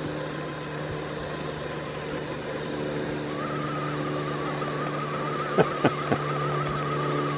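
Small electric motor of a 1/10-scale RC crawler whining under load as a tow line hauls a second crawler up a gravel slope. A steady hum runs throughout, with a higher, wavering whine setting in about three seconds in. A few sharp clicks come near the end.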